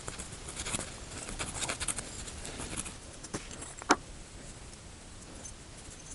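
Soft rustling and small clicks from hands pulling strands of plumbing flax and handling threaded fittings, with one sharper click about four seconds in.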